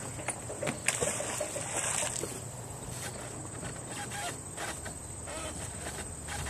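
A thrown fishing magnet hitting the lake with a splash about a second in, followed by scattered small knocks as the rope is worked from the dock.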